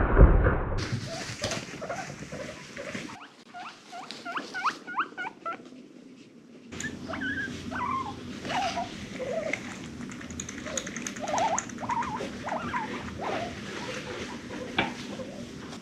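Guinea pig giving many short, soft squeaks, several a second, each rising in pitch, with light clicks and rustling between them.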